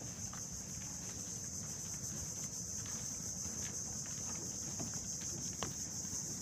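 Steady high-pitched drone of insects, over a low steady rumble, with a few faint footsteps on wooden planks.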